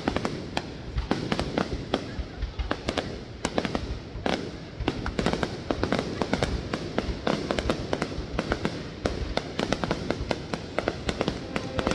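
Fireworks going off in quick, irregular succession: a dense run of sharp bangs and crackles with no pause.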